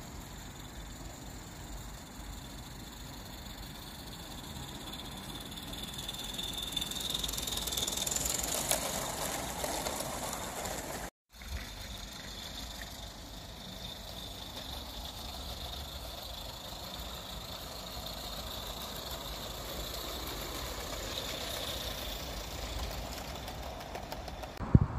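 Live-steam garden-railway locomotive running, getting louder about seven to ten seconds in. The sound drops out briefly just after that, then carries on steadily.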